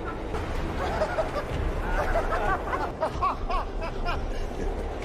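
People's voices laughing and talking, with a quick run of laughing syllables in the middle, over a steady low rumble.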